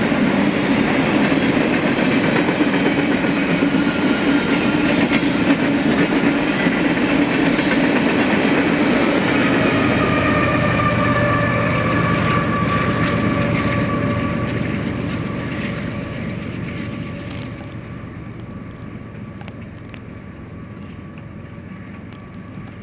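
A mixed freight train of tank cars, boxcars and covered hoppers rolling past, wheels rumbling and clattering over the rails. From about halfway in, a few thin steady squeals from the wheels join the rumble, and the whole sound grows steadily fainter over the last ten seconds.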